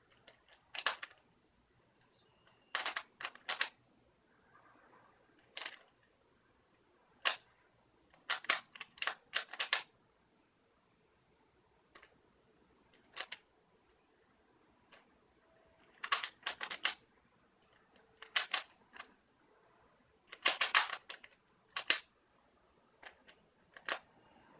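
Rubik's cube layers being turned by hand: short runs of quick plastic clicks and clacks, broken by pauses of a second or more.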